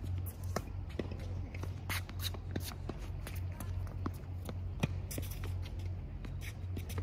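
Tennis rally on a hard court: racquet strikes and ball bounces as sharp pops a second or so apart, the loudest a little before five seconds in, with shoe scuffs between them, over a steady low hum.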